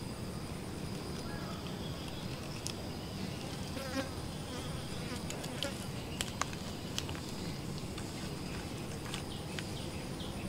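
Insects trilling steadily in several high, unbroken tones. A few sharp clicks and short chirps come between about two and seven seconds in, over a steady low rumble.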